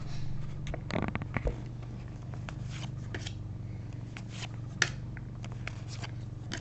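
Trading cards from a freshly opened pack being handled and sorted: soft rustles and light clicks of card stock, busiest about a second in, with one sharp click near the end, over a steady low hum.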